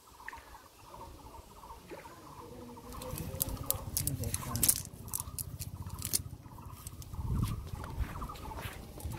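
A freshly caught fish flopping on wet grass and mud, with a run of sharp wet slaps and clicks starting about three seconds in, thickest a second or two later, then sparser.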